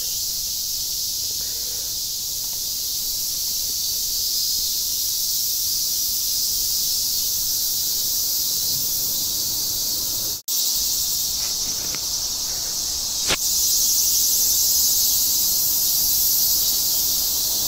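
A dense chorus of insects shrilling steadily, a continuous high-pitched drone. The sound drops out for an instant about ten seconds in.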